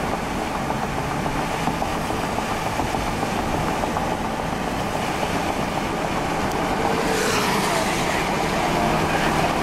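Road and tyre noise heard inside a moving car, a steady rushing din, with a brighter hiss that grows louder about seven seconds in.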